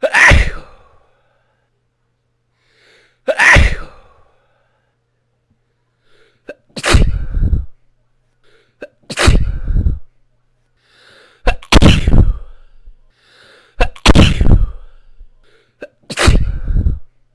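A person sneezing loudly seven times in a row, a sneeze every two to three seconds, each one preceded by a short, faint intake of breath.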